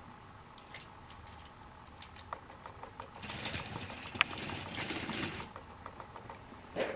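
Battery-powered Trackmaster toy train whirring as it pulls plastic trucks along the track, louder for a couple of seconds in the middle, with scattered small plastic clicks and one sharp click about four seconds in.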